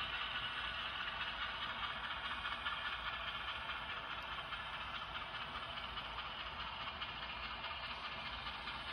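Model diesel locomotives hauling a coal train past at close range: a steady rolling hiss and clatter of the wheels on the track, with an engine-like running sound, easing slightly as the locomotives go by.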